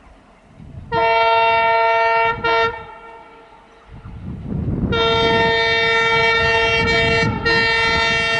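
WDG3A ALCO diesel locomotive's horn: a long honk about a second in and a short toot, then after a pause two more long honks with a brief break between them. Under the later honks, the low rumble of the approaching train builds.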